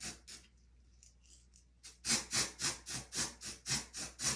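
Quick rhythmic rubbing or scrubbing strokes, about four a second, that break off for about a second and a half near the start and then resume louder.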